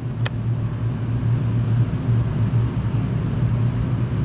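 Steady low mechanical hum, with one faint click shortly after the start.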